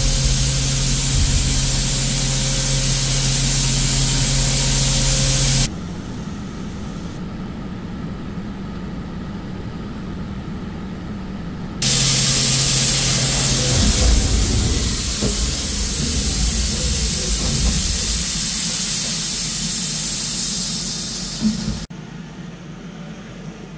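CNC mill spindle turning a small ball endmill at 8000 rpm with a steady hum, under the loud hiss of a tap-water coolant mist spraying from a nozzle onto the cut in stainless steel. The hiss cuts out about six seconds in, leaving quieter machine noise, comes back at about twelve seconds, and drops away again near the end.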